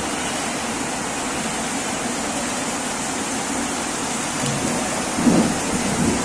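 Steady hiss throughout, with a short crinkle of the plastic cucumber seed packet about five seconds in as it is put down.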